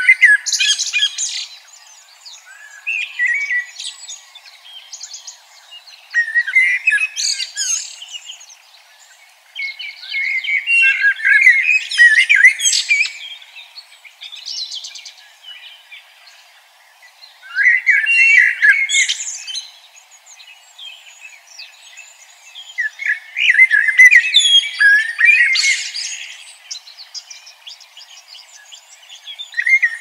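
A songbird singing in about six phrases of rapid, high warbling, each one to four seconds long, with gaps of a few seconds between them.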